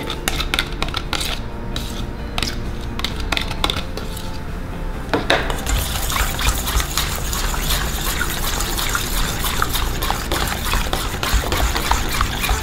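A metal spoon in thick mayonnaise and ketchup in a stainless steel bowl. For the first few seconds it gives scattered scrapes and taps as the last ketchup is spooned out of a plastic cup. From about five seconds in it turns to continuous wet stirring, with fine clinks of spoon against bowl.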